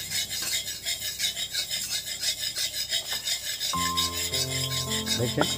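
Long metal spatula scraping back and forth across the bottom of an iron kadai in quick, even strokes, stirring melted butter. Background music comes in about two thirds of the way through.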